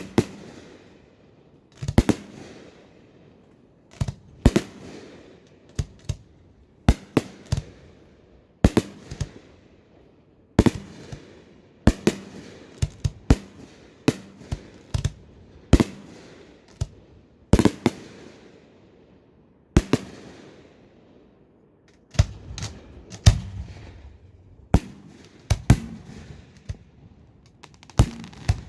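Aerial fireworks bursting overhead: a steady run of sharp bangs, sometimes one at a time and sometimes in quick pairs or triples, each followed by a brief crackling tail and echo, with a short lull of about two seconds near the middle.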